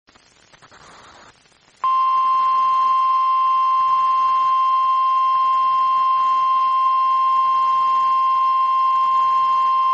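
NOAA Weather Radio 1050 Hz warning alarm tone: one steady, loud, high beep that starts about two seconds in and holds without change. It is the alert signal that an emergency warning broadcast follows.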